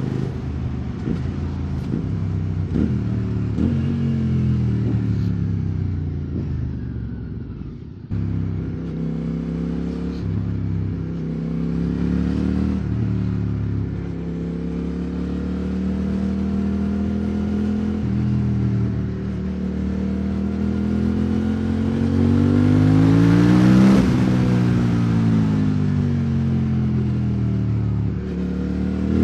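QJ Motor SVT650X's V-twin engine through an Arrow Racetech slip-on exhaust while riding. The engine note falls over the first several seconds, breaks off briefly about eight seconds in like a gear change, holds steady, then rises and falls again near the end.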